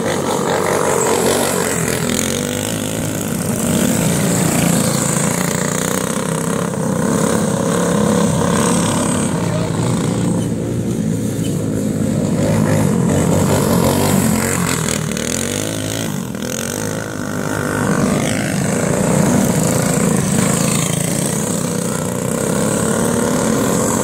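Several racing karts with Tillotson 196R single-cylinder four-stroke engines running on alcohol, running hard in a pack. The engine noise swells and fades every few seconds as the karts come past.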